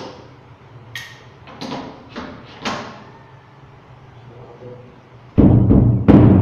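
A few light knocks and clicks of drum hardware being handled, then about five seconds in a drum of the kit is struck hard and rings with a deep, sustained tone, struck a second time near the end.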